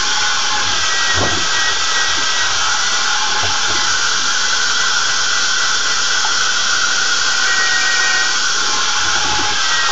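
Power drill running steadily with a whine, spinning the Carboy Cleaner's scrubbing pads inside a glass carboy and swishing the cleaning solution around. There are a couple of faint knocks from the pads against the glass.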